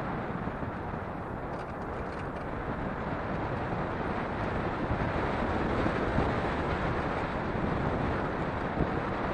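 Steady rush of wind and road noise from a Nissan March driving along a dirt road, picked up by a camera mounted on the car's door.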